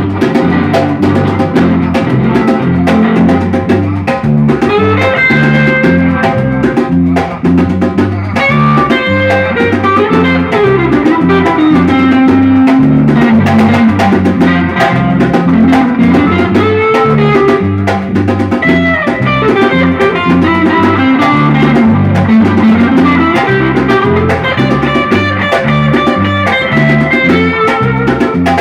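A samba-reggae band playing an instrumental passage, with guitar lines over a steady groove of drums and percussion.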